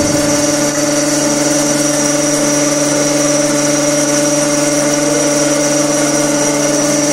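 Brinell hardness testing machine's motor running: a steady hum made of several held tones with a faint high whine above them, unchanging throughout.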